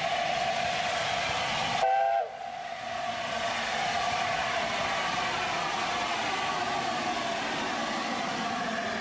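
LNER A4 Pacific No. 60007 Sir Nigel Gresley's chime whistle sounding a steady note that ends with a short falling pitch about two seconds in. The locomotive's steam then carries on as an even hiss as it moves off.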